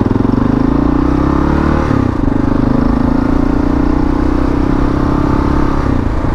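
Kawasaki KLR650's single-cylinder engine pulling away, its pitch rising, then dropping with an upshift about two seconds in and running steady; there is a brief dip near the end.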